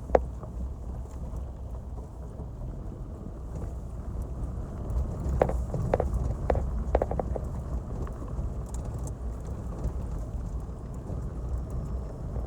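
Four-wheel-drive vehicle driving over a rough dirt track: a steady low engine and road rumble, with a few sharp knocks and rattles from bumps about halfway through.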